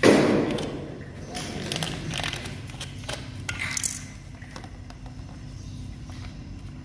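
Grey PVC drain-pipe fittings handled and pushed together by gloved hands. A loud knock of plastic at the start is followed by scattered clicks and scrapes of plastic fittings against each other and the concrete trench.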